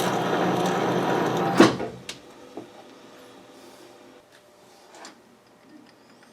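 Metal lathe running with its gears whirring during a thread-cutting pass, then stopped about a second and a half in with a single sharp clunk. A few light clicks follow as it falls quiet.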